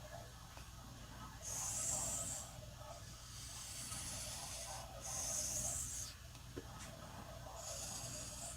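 Knife blade being drawn across a water-lubricated whetstone, about four long hissing sharpening strokes a second or two apart.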